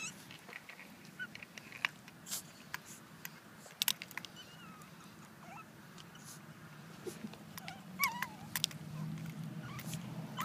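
A small puppy play-biting a hand, giving a few faint high squeaks and whines; one short whine slides down in pitch about eight seconds in. Scattered sharp clicks run through it.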